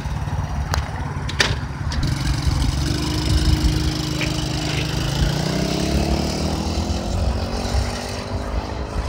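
Tao Tao 125cc ATV's single-cylinder four-stroke engine pulling away under throttle, its note holding steady and then rising gradually through the last few seconds as the quad gathers speed. Two short clicks in the first two seconds.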